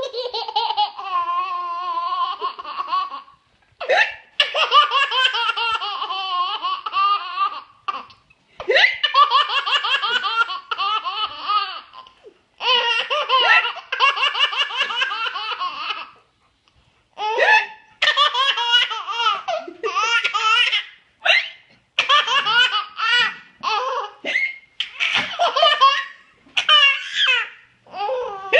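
Baby boy belly-laughing in repeated high-pitched bouts of a few seconds each. Short, sharp hiccups from his mother come in the gaps, each one setting off the next bout of laughter.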